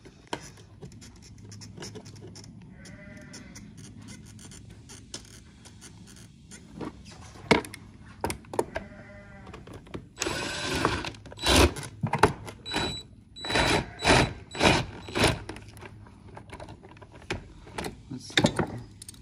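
Steel socket on a long extension clanking and scraping against metal while fuel-tank mounting bolts are started: a run of sharp clanks and rattles in the second half, with a brief high ringing tone among them.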